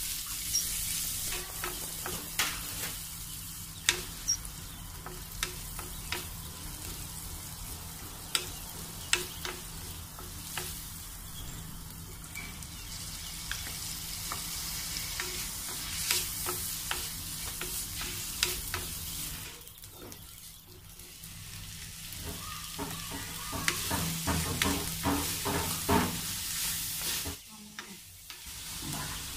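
Sliced shallots, green chilies and bitter gourd frying in oil, sizzling steadily, while a wooden spatula stirs them with frequent sharp clicks and scrapes against the pan. The sizzle drops away briefly twice, about two-thirds through and near the end.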